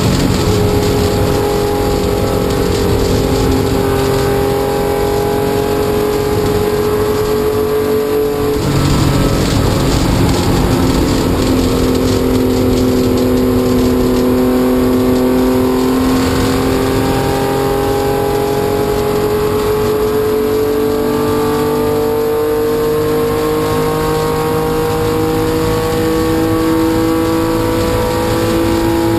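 1972 Porsche 911 RSR's 2.8-litre air-cooled flat-six running hard at racing speed, heard from inside the cockpit over wind and road noise. The engine note breaks briefly about eight and a half seconds in, then climbs steadily in pitch through the second half.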